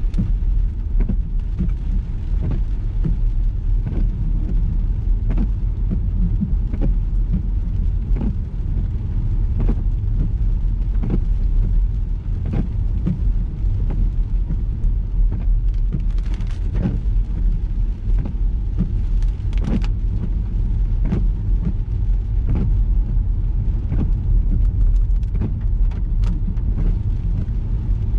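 Ford EcoSport driving in the rain: a steady low road and engine rumble, with scattered sharp ticks of raindrops striking the car.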